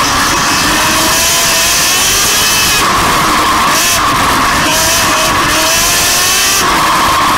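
Racing ride-on lawn mower engines running hard, their pitch rising and falling as the mowers accelerate and ease off, heard loud and close from a camera mounted on one of the mowers.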